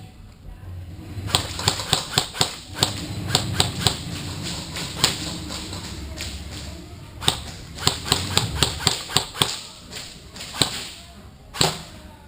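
Airsoft guns firing, a string of sharp cracks at about three or four a second in two bursts, with a few single shots near the end.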